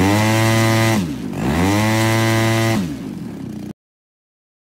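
EME 70 twin-cylinder two-stroke petrol engine with port-matched mufflers, driving a propeller on a test stand. It is revved up and held at high throttle twice, with a brief drop between, then falls back to a lower idle. The sound cuts off suddenly near the end.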